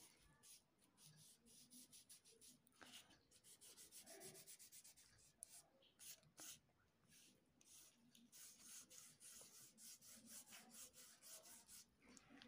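Faint, quick scratchy strokes of a red crayon shading a drawing on paper, several strokes a second, pausing briefly in the middle.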